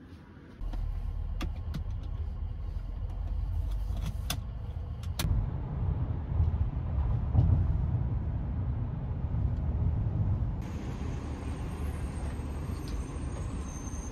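Car driving on a highway, heard from inside the cabin: a steady low road and engine rumble, with a few sharp clicks in the first five seconds.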